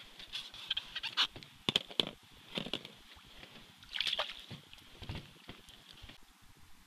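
Scattered crackles and clicks, then splashing at an ice-fishing hole as a perch is pulled up through the ice, loudest about four seconds in.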